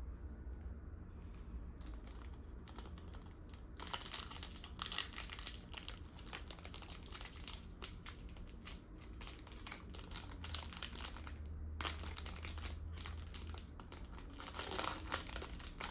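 Crinkling and rustling of plastic card sleeves or pack wrapping as trading cards are handled, in dense crackly runs starting about two seconds in, over a low steady hum.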